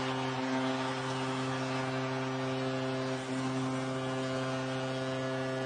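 Arena goal horn sounding a steady chord of several held notes for a Colorado Avalanche home goal, over a cheering crowd.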